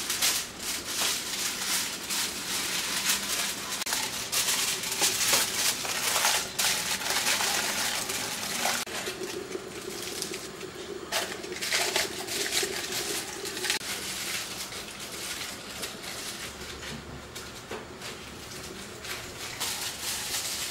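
Aluminium foil being cut with scissors, then crumpled and pressed by hand around metal cone moulds: continuous crinkling and rustling with many sharp crackles.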